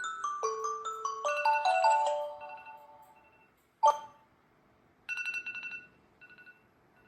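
Tablet alarm-clock ringtone: a quick marimba-like melody of bright notes that stops about two and a half seconds in and rings away. A single sharp click follows about four seconds in, then a short burst of rapid electronic beeping near five seconds and a few more beeps just after six.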